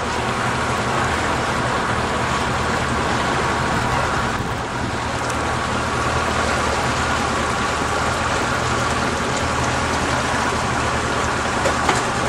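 A boat's motor running steadily under way, a constant low hum, under a broad hiss of wind and water rushing past the moving hull.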